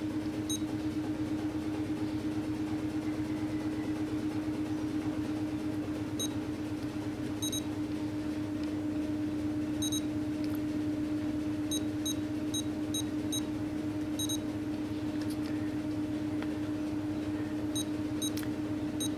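Futaba 14SG transmitter giving short, high key beeps as its menus are scrolled and selected, some single and some in quick runs of several, with the longest run about two thirds of the way through. A steady low hum runs underneath and is the loudest sound.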